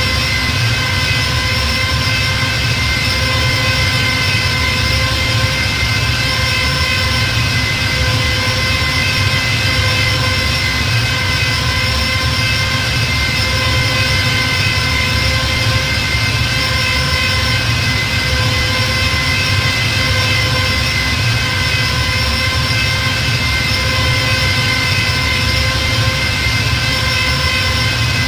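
Star Wars TIE fighter engine sound effect, held as a steady drone: several high tones over a low rumble and hiss, unchanging throughout.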